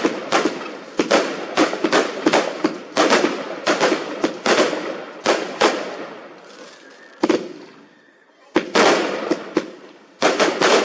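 Fireworks going off in a rapid run of sharp bangs, several a second, each with a crackling trail. They thin out to a lull about seven seconds in, then a few more bangs come near the end.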